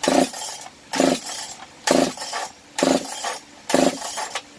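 Recoil starter of a Makita DPC7321 two-stroke concrete saw being pulled five times in quick succession, about one pull a second; the engine turns over on each pull but does not fire or catch.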